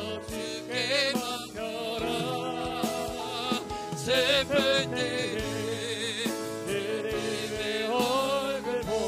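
A man singing a slow Korean worship song into a pulpit microphone, holding long notes with vibrato over sustained instrumental accompaniment.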